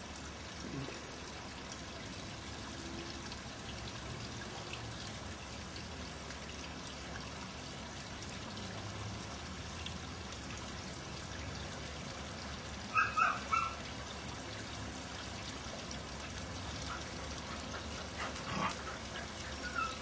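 Dog barks: three quick high barks about 13 seconds in and a few more near the end, over a steady trickling of water.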